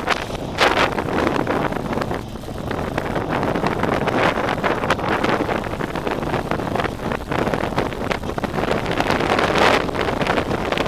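Wind rushing over the bare microphone of a helmet-mounted action camera on a moving motorcycle, gusting up and down, with the motorcycle's running and road noise underneath.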